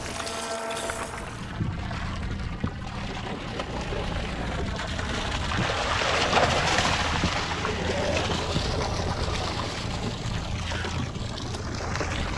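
Hooked tuna splashing and thrashing at the surface alongside the boat, loudest about six seconds in as it is gaffed, over the steady low hum of the boat.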